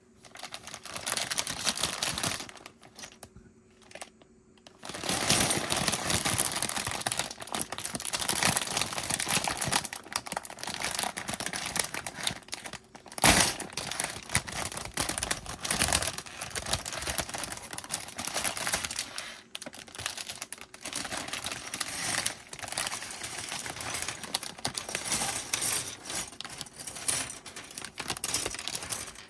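Lego pieces being handled: a plastic parts bag crinkling and small plastic bricks clicking and rattling, with one sharper click about 13 seconds in.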